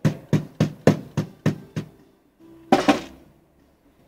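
A run of seven sharp knocks, evenly spaced at about three a second, then a short pause and a quick double knock about three seconds in.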